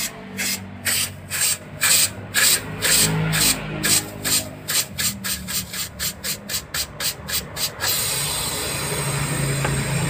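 LPG flushing gas hissing out of a refrigerator's condenser pipe in rhythmic spurts, driven by the running compressor. The spurts come faster and faster, then stop about eight seconds in and give way to a steady hiss with a low hum.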